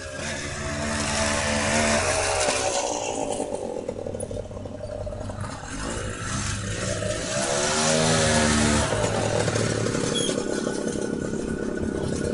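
Forshaga Shopper moped car's small engine buzzing as it drives past. It is loud about two seconds in, and again around eight seconds in, where its pitch rises and falls as it speeds up and slows, then fades.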